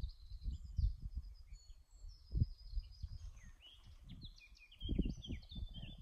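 Blackcap singing its warbling song, a run of varied phrases, with other songbirds faintly behind it. A low gusty rumble of wind on the microphone comes and goes beneath it.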